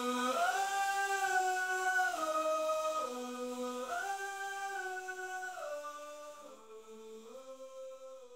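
Closing bars of a song: slow, long-held wordless melody notes gliding smoothly between pitches, fading out toward the end.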